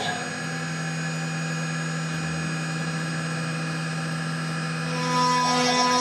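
6090 CNC router running a G-code program: the spindle spins a small carving tool while the motors move the head, giving a steady whine of several tones. About five seconds in it gets louder and hissier as the tool starts cutting into the wooden board.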